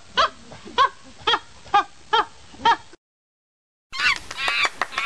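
Monkey calls: a run of short, pitched cries about two a second, then after a pause of about a second a burst of rapid, high chattering.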